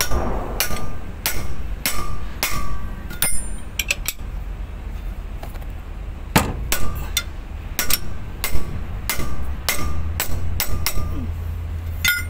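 Ring spanner clinking against the propeller-shaft flange bolts at a truck transmission's output yoke as they are tightened. The clinks are sharp and metallic and come irregularly, about one or two a second, with a short pause partway through.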